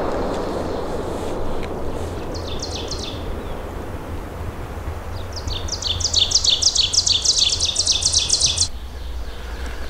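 The echo of a shotgun blast rolling away through the woods over the first second or two, then songbirds singing: a short phrase of high falling notes about two and a half seconds in, and a long fast run of repeated high notes from about five seconds in that stops abruptly near the end.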